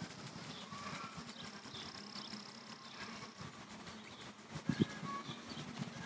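Honey bees buzzing around an opened hive, with many small birds chirping and one thump just under five seconds in.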